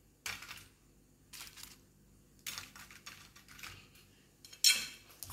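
A few short, light clatters and scrapes of kitchen items being handled, the loudest near the end.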